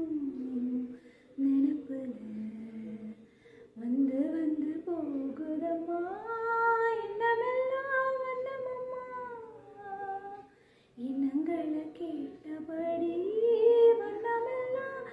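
A woman singing solo and unaccompanied: slow phrases of long held notes that glide up and down in pitch, with short pauses between phrases.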